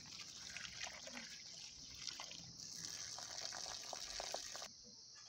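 Faint trickling and splashing of water poured over chopped tomatoes and onions in a plastic tub as hands rub them clean, with small knocks of the pieces. It stops abruptly near the end.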